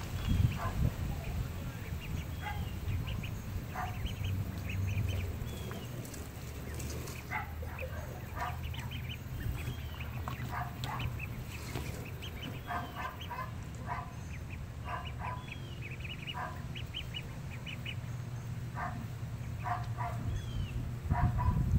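Ducks quacking repeatedly in short runs of two or three calls, with small high chirps among them, over a low steady rumble.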